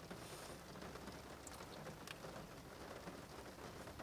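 Faint, steady patter of rain on a car roof heard from inside the cabin, with a short sniff at the start.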